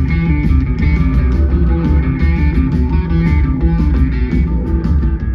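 Live blues-rock band playing: electric guitar over bass and drums.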